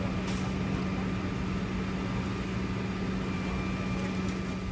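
Flatbed tow truck's engine running with a steady low hum that stops near the end.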